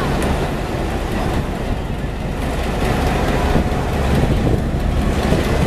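Diesel-electric locomotive engine running with a steady low rumble as the locomotive moves slowly onto a railway turntable.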